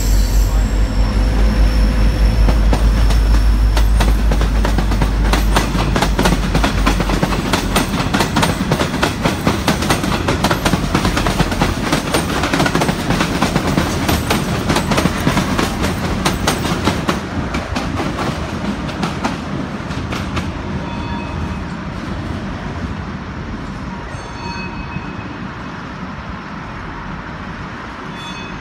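Freight train passing close below: the diesel locomotive's engine drone for the first several seconds, then the wagons clattering over the rail joints in a steady clickety-clack that gradually fades.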